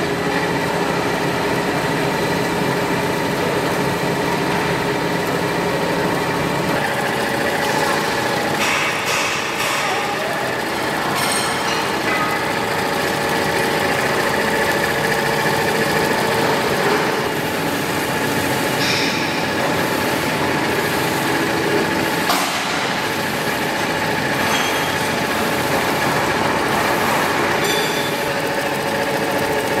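Single-head multi-needle industrial embroidery machine running, its needle bar stitching a design at speed with a steady mechanical chatter and hum, broken by a few brief clicks.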